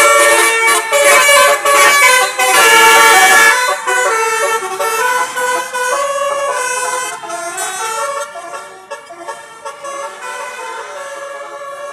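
Bus telolet horn, a multi-tone air horn playing a stepping melody of several notes. It is loud for the first three and a half seconds, then softer, dropping again after about seven seconds.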